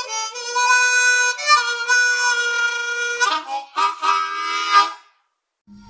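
Short instrumental intro jingle of held, reedy chords that shift every second or so, ending about five seconds in.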